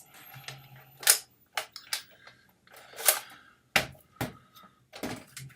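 Polaroid One Step instant camera being worked: a thin high whine of the flash recharging rises and fades in the first couple of seconds, over a run of sharp clicks and short clattery handling noises from the camera and its film.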